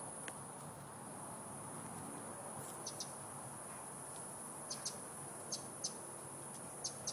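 Faint insect sounds: a steady high-pitched trill with short, high chirps here and there from about three seconds in, several of them in quick pairs.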